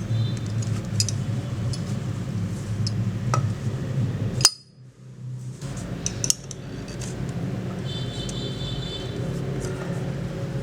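Small hard metal parts clinking and tapping in scattered single strikes over a steady low hum. The sound drops away suddenly about halfway through, then the clinking resumes.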